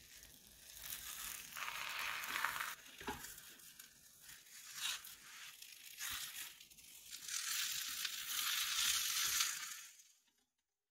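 An omelette sizzling in a nonstick frying pan as it is rolled over with silicone spatulas, with light scrapes and taps of the spatulas. The sizzle swells about two seconds in and again from about seven seconds, then stops abruptly near the end.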